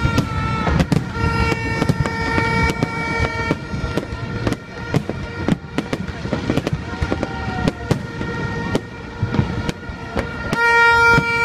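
Aerial fireworks going off in a rapid, irregular string of bangs and crackles. Over them a held pitched tone comes and goes, loudest near the end.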